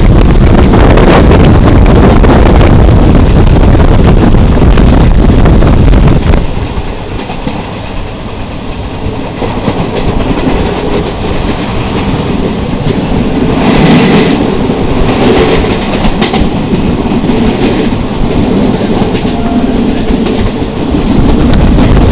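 Train running along the track, with wheel-on-rail rumble and clicking over rail joints. Heavy wind buffets the microphone for about the first six seconds, then the sound drops and the rolling of the train is heard more clearly.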